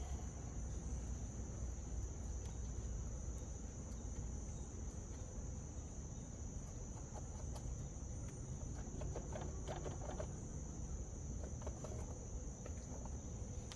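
Crickets trilling steadily in a continuous high chirr over a low background rumble, with a few faint clicks and rattles about two-thirds of the way in.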